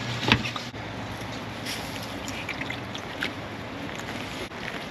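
Dry leaves, twigs and loose rock crackling and crunching as a man scrambles up a brushy limestone bank, with one sharp knock about a third of a second in, over a steady wind-like hiss. A boat motor's low hum stops within the first second.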